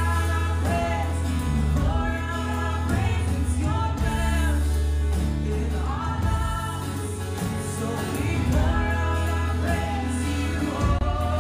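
Worship music: singing voices over instrumental accompaniment with sustained low bass notes.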